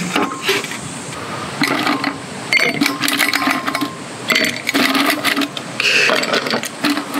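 Ice cubes clattering and clinking as they are taken out of a stainless steel insulated jug and dropped into a tall drinking glass, a run of quick clicks and rattles with brief ringing from the glass.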